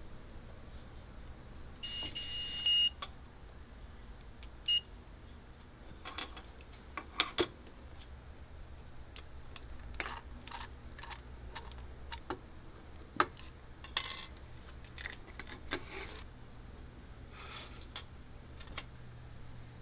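Digital multimeter's continuity beeper sounding as its probes touch the tonearm wiring: one high beep of almost a second about two seconds in, and a short one a few seconds later. After that come scattered light clicks and taps of small metal tools and parts being handled on the turntable base.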